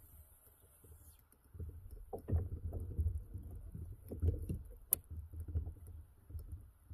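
Irregular bumps and knocks of a person shifting their weight and handling gear while standing on a fishing kayak, with a sharp click about five seconds in.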